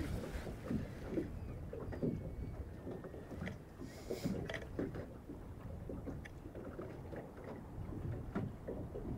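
Small waves lapping and slapping irregularly against the hull of a small anchored boat, with a brief hiss about four seconds in.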